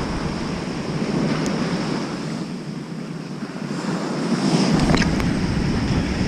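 Surf breaking and washing up a sandy beach in high winter waves, with wind buffeting the microphone. The surf swells louder about five seconds in.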